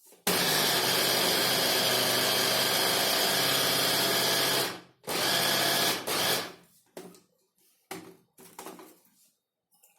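Electric chopper/mixer motor running at full speed, its blades churning wheat-flour dough that is still too dry. It runs about four and a half seconds, stops briefly, runs again for about a second, then winds down, and a few light knocks follow.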